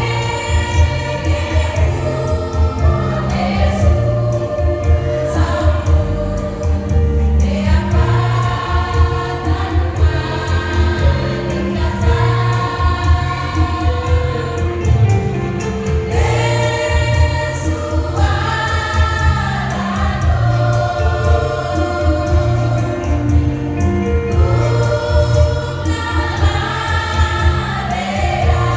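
A choir singing a song together with a steady low beat of accompaniment underneath.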